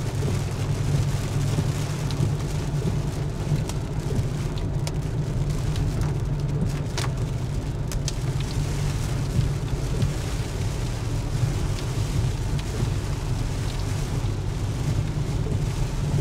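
Rain falling on a car as it drives, heard from inside the cabin: a steady low road-and-engine drone with scattered raindrop ticks over it.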